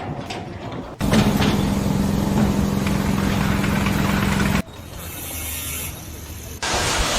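A motor or engine running with a steady low hum, broken by abrupt cuts to quieter noisy stretches near the start and end.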